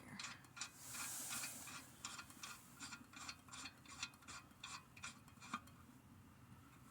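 Lug nut being threaded onto a wheel stud during a tire change: a faint scrape of metal, then a run of light metallic clicks, about two or three a second, that stops near the end.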